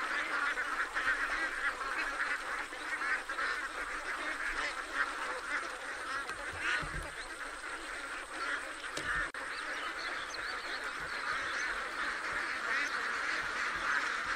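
A large flock of domestic ducks quacking together in a dense, continuous chorus of overlapping calls.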